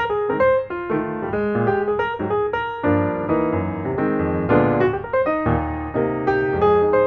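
Background piano music: a quick, steady run of notes and chords.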